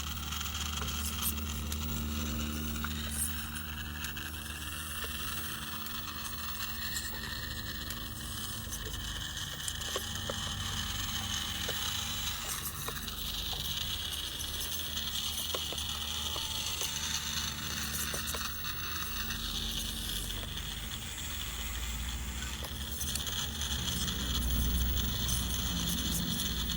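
Radio-controlled micro excavator running, a steady motor and hydraulic hum with scattered small clicks and scrapes and short whines as it works, getting a little louder near the end.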